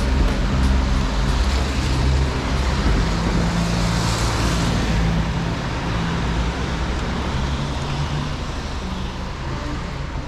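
Street traffic on a wet road: car tyres hissing past, one loudest about four seconds in. A low bass line from background beat music runs underneath.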